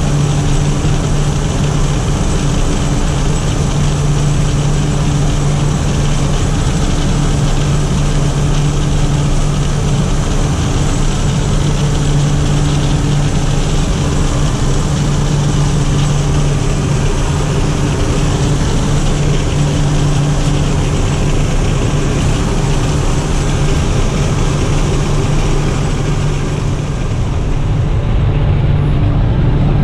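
Steady drone of the jump plane's engines heard inside the cabin in flight: a strong low hum with a hiss above it. Near the end the hiss fades and the drone gets slightly louder.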